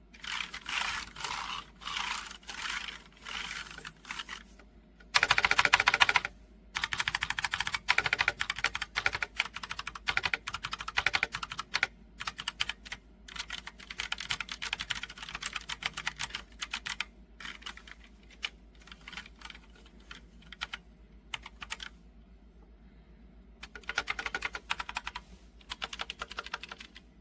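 HK Gaming GK61 60% mechanical keyboard being typed on, keys clacking in runs. Short bursts of keystrokes come first. A fast, loudest run follows about five seconds in, then steady typing that thins out and pauses briefly before a final burst near the end.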